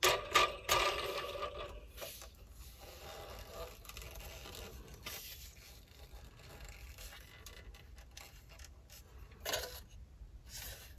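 Hands handling a LEGO plastic model plane: a propeller flicked by a finger clatters and rattles at the start, then quieter scraping and rubbing of plastic bricks as the model is turned over, with one more brief clatter near the end.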